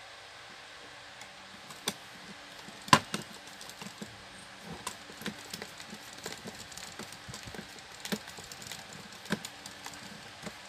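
Scattered small clicks and taps of a screwdriver against the metal and plastic parts of a stand fan's motor and gear housing as a nut is undone, with one sharper knock about three seconds in.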